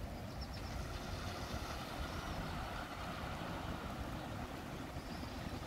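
Outdoor street ambience: wind buffeting the microphone with a low, unsteady rumble, over a steady hiss of traffic on a wet road that swells slightly in the middle.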